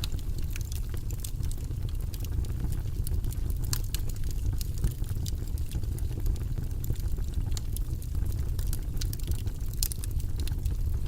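Fire crackling in a fireplace: a steady stream of short, sharp pops and crackles over a constant low rumble of the flames.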